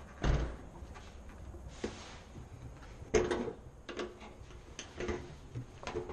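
Screwdriver prying and working at a car's plastic windshield cowl panel and trim: a dull bump near the start, a louder scraping knock about three seconds in, then scattered small clicks and scrapes of plastic.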